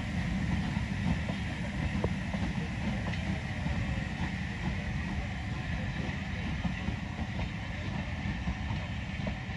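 Passenger train running along the track: a steady rumble with scattered small wheel-on-rail clicks and no clear beat.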